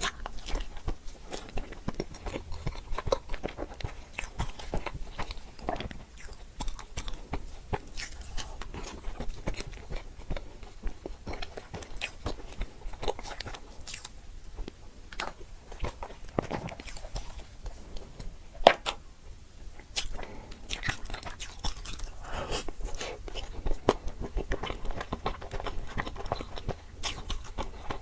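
A person chewing and biting into desserts, with irregular mouth clicks and smacks and an occasional crunch. One sharp click about two-thirds of the way through is the loudest.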